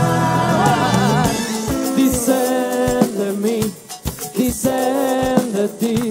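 Live band playing through a PA: drum kit keeping a steady beat under bass and a wavering melody line, with a brief drop in level a little past the middle.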